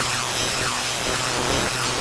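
Modular synthesizer noise drone: a 4ms Ensemble oscillator ring-modulated through a Doepfer ring modulator, giving a harsh, dense, grinding texture over a steady low hum. A few quick falling pitch sweeps cut through near the start.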